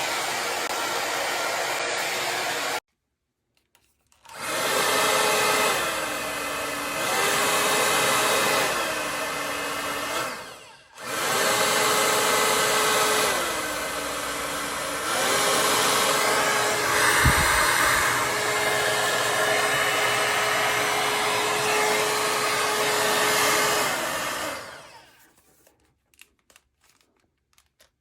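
A hot air brush (hair dryer brush) running with its fan whining. It cuts off abruptly about three seconds in and starts up again. Three times the whine drops to a lower pitch and quieter level as it is switched to a lower setting, then steps back up. It stops briefly near the middle and again near the end, with a short knock in between.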